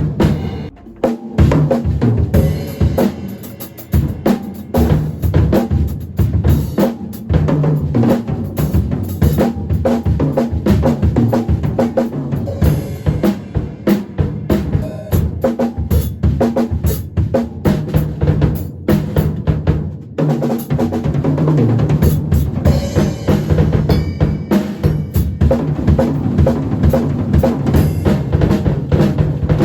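Acoustic drum kit played in a steady, dense groove of bass drum and snare hits with rimshots and fills. There is a brief break about twenty seconds in.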